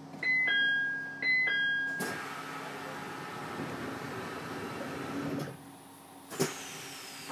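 Door chime of a JR East E721-series electric train: a high-low two-tone chime sounding twice. A rushing noise lasts about three seconds after it, and a sharp knock comes a little over six seconds in.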